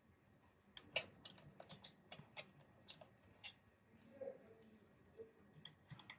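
Faint, irregular clicks and taps of small hard parts being handled, a quick run of them through the first half and a few more near the end.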